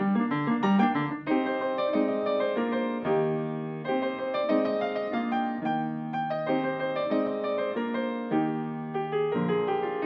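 Background music: a piano playing a melody over chords.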